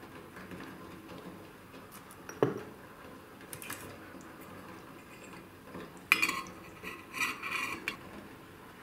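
Stainless steel pot lid being set on a saucepan, clinking and ringing against the rim several times in the last few seconds. A single sharp knock about two and a half seconds in.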